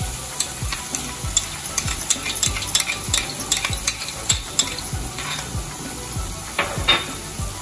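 Capsicum, sesame seeds and spring onion greens sizzling gently in oil in a stainless steel kadai on low heat. Many sharp clicks and scrapes run through it as a metal spoon scrapes ketchup out of a small bowl into the pan.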